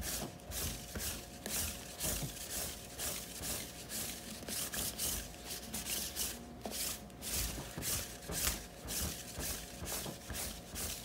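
Sticky lint roller rolled in quick back-and-forth strokes over a heavy cotton T-shirt, a rasping, crackling sweep about twice a second as the adhesive sheet grips and peels off the fabric. The strokes stop near the end.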